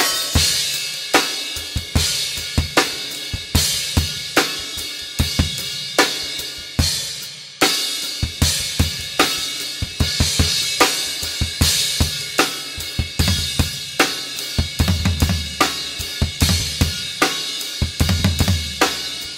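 Five-piece acoustic drum kit with Zildjian cymbals played solo with sticks: snare, toms, bass drum, hi-hat and cymbals in dense, irregular multi-limb polyrhythmic patterns. Rapid low tom and bass drum runs come about fifteen seconds in and again near the end.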